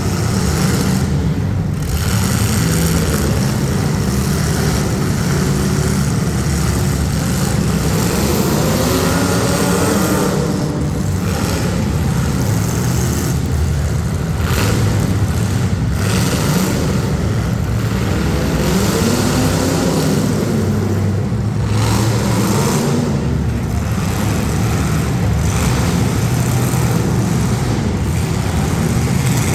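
Demolition derby street-stock car engines running and revving hard together, their pitch rising and falling several times.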